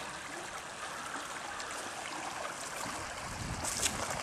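Creek water running fast over rocks, a steady rushing, the creek running high with small rapids after a week of rain. A brief scratchy rustle near the end.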